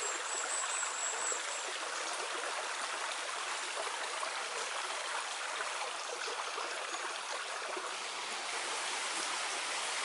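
Water of the Bigar karst spring flowing over stones in a shallow stream: a steady rushing. A thin high whistle sounds over it in the first second and a half.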